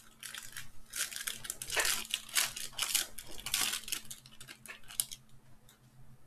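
Gold foil wrapper of a Panini Black Gold trading-card pack crinkling and tearing as it is opened by hand: a rapid run of crackles that stops about five seconds in.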